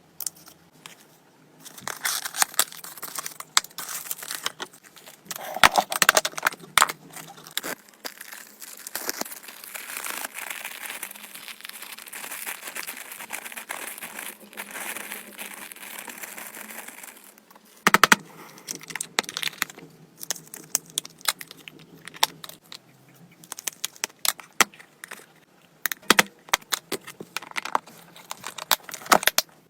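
Packaging being handled and opened by hand: crinkling and tearing with many small clicks and rustles, a longer stretch of steady rustling in the middle, and a sharp burst about eighteen seconds in.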